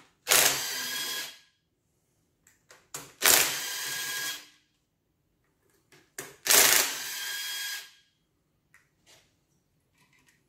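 Cordless power driver spinning out the rocker arm bolts on a 5.9 Magnum V8's cylinder head: three short runs, each starting sharply and then spinning steadily for a second or so, with light clicks of parts being handled in between.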